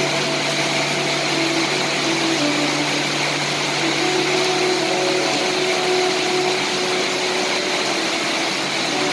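Steady hiss of rain falling, even and unbroken, with faint held tones drifting in and out underneath.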